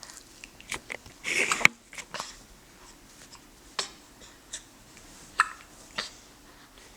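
A one-month-old baby hiccuping: short, sharp hics at uneven gaps of roughly a second. About a second in there is a longer, louder noise that stops abruptly.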